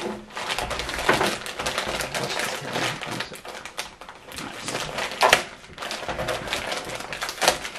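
Clear plastic bag around a Wi-Fi router crinkling and rustling as hands work at it. There are louder crackles about a second in, about five seconds in and near the end.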